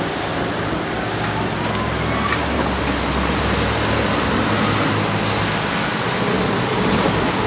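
Road traffic noise at a level crossing: a steady rushing hiss of passing vehicles with a low engine hum through the middle.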